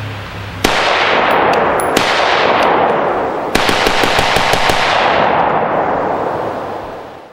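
AR-15 rifle with a muzzle brake fired in rapid semi-automatic strings. The shots start sharply just under a second in, a second fast string begins around three and a half seconds in, and the shooting fades out near the end.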